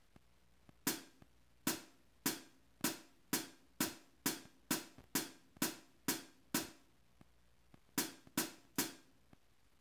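Electronic drum kit with a Strike Pro hi-hat sounding a steady run of single drum hits, about two a second, twelve in a row, then a short pause and three more near the end.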